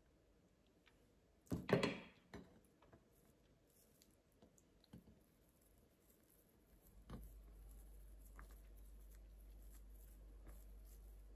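Spoons knocking against a stainless-steel bowl as they are set down, a short clatter of several knocks about two seconds in. After that come soft handling sounds as a crêpe is rolled by hand, and a low steady hum starts about seven seconds in.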